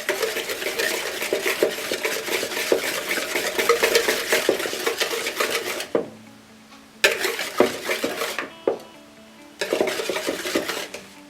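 A utensil beating egg into creamed butter and sugar in a mixing bowl, with rapid clicking and scraping against the bowl. It stops about six seconds in, then resumes in two shorter spells.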